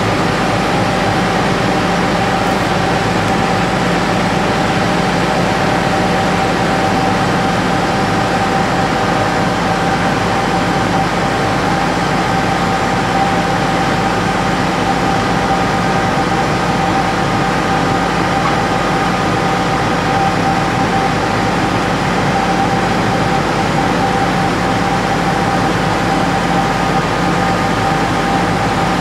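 Crane's engine running steadily at constant speed, a steady drone with a high whine over it, while a chiller hangs from its lifting straps.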